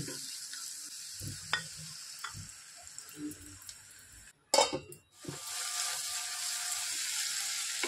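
Sliced onions frying in hot oil in a non-stick pan: a steady sizzle, with a spatula stirring and scraping against the pan. About halfway through the ground spice masala goes in, and the sizzle grows louder and steadier for the rest of the time.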